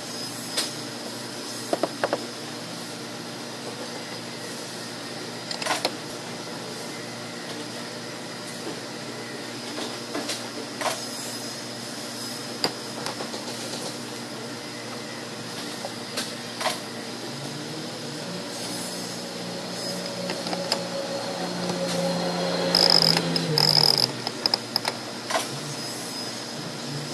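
Metal parts of a PanaPress arbor press clicking and clinking as it is assembled by hand, over a steady shop hum. About three-quarters of the way through, a louder mechanical whir rises for a few seconds.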